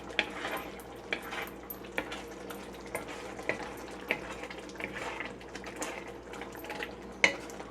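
A cooking utensil clinking and scraping against a pot in irregular short knocks, as diced potatoes are stirred into a simmering ground-pork and tomato sauce stew, with a faint bubbling hiss underneath.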